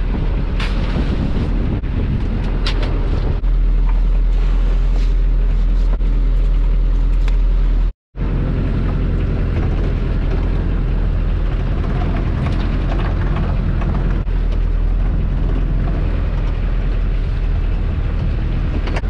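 Small fishing boat's engine running under a heavy rumble of wind on the microphone, with a few knocks from lobster pots being handled in the first few seconds. The sound drops out completely for a moment about eight seconds in.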